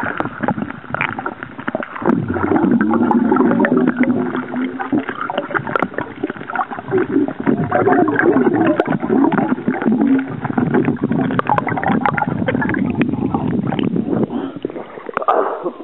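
Underwater bubbling and gurgling picked up by a submerged camera as a man drinks beer from a glass bottle under the sea, blowing air into the bottle and drinking again, with many small clicks and crackles.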